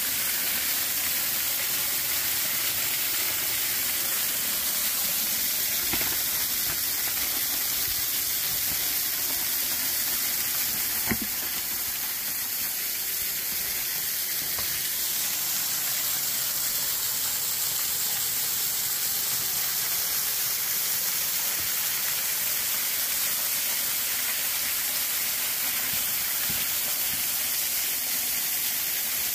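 Steady rush of flowing creek or waterfall water, an even hiss heavy in the highs. A single brief knock about eleven seconds in.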